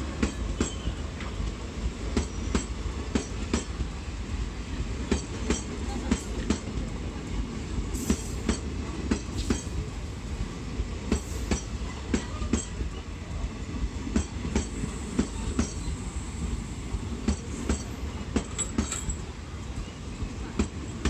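Indian Railways passenger coaches rolling past on an arriving train: a steady low rumble with a rhythmic clicking of the wheels over the rail joints, and a faint high squeal at times.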